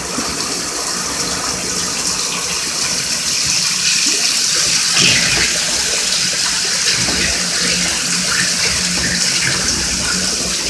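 Shower water running steadily into a bathtub, a constant hiss of spray that grows slightly louder over the first few seconds.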